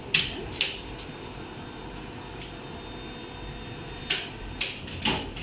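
Cotton candy machine running with a steady hum, with several short hisses, most of them in the last second and a half.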